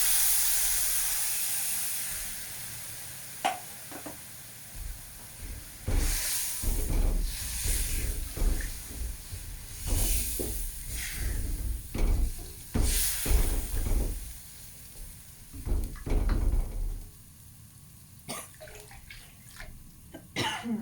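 Spice paste in the frying pan hissing and sizzling as water is added, dying away over the first few seconds. Then come irregular splashes and knocks of water and utensils in the pan, followed by a few light clicks near the end.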